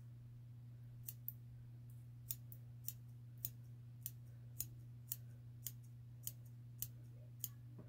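Small scissors snipping the synthetic fibers of an EP baitfish streamer, a dozen or so short, crisp snips about two a second as the fly's profile is trimmed and tapered, over a faint steady low hum.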